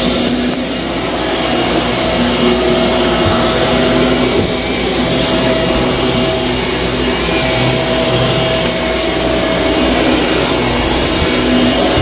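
Shark Navigator upright vacuum running steadily with a constant motor whine as it is pushed over carpet.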